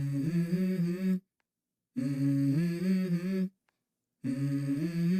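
Background music: a hummed vocal phrase of a few notes stepping upward, heard three times with short silent gaps between.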